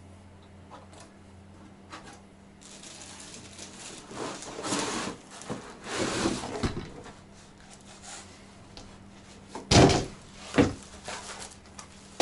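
Plastic window-fan parts and packaging being handled: rustling with several knocks, the loudest two close together about ten seconds in.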